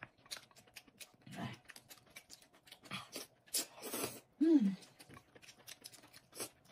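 Noodles being slurped and chewed, with wet mouth clicks and smacks throughout and a few louder slurps. About four and a half seconds in, a short falling hum from one of the eaters.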